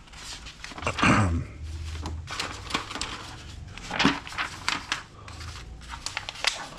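Loose sheets of printer paper rustling and crinkling as the pages of a printed manual are lifted, flipped and shuffled by hand, in irregular swishes and crackles.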